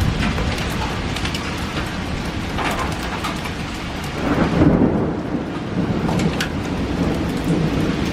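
Steady rain falling, with a low rumble of thunder that swells about halfway through.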